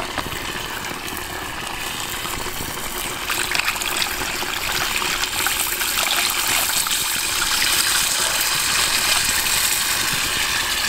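Coconut water poured from an opened coconut into a hot steel wok around a whole chicken, splashing and starting to sizzle. It gets louder and hissier about halfway through.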